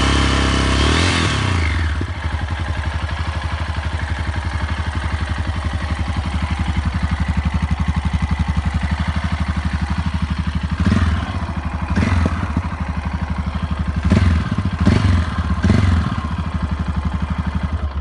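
Yamaha XT660X's single-cylinder four-stroke engine revved briefly, falling back to idle about two seconds in, then idling with a steady even pulse. From a little past the middle it is blipped in several short throttle bursts.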